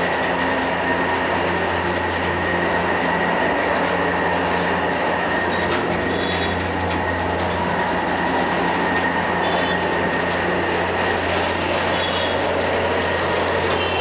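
Large pot of goat-leg paya at a rolling boil over a high flame: a steady, loud roar of burner and bubbling, with a constant low hum and a thin high tone running through it.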